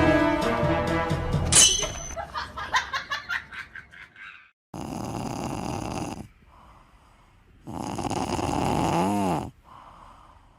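Music ends with a crash about a second and a half in. Then come two long, loud snores from a sleeping pet, each lasting about a second and a half, with quieter breaths between them.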